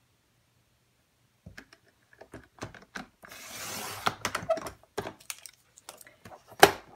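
Sliding-blade paper trimmer cutting black cardstock: the blade carriage is drawn along its rail in a hiss lasting about a second, about halfway through. Small taps and clicks of the cardstock being lined up and the trimmer handled come before and after, the loudest a sharp click near the end.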